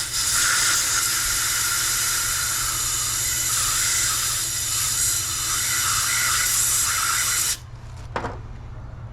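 Loud, steady hiss of a pressurized spray, starting abruptly and cutting off after about seven and a half seconds.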